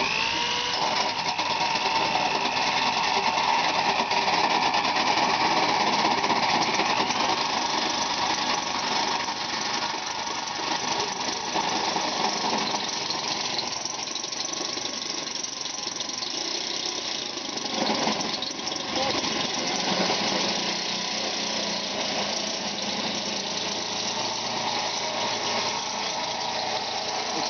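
Handheld electric drill driving a hole saw through an FJ Cruiser's fender, spinning up at the start and then whining on steadily under load. The cut is rough, with the hole saw wobbling and skipping in the panel.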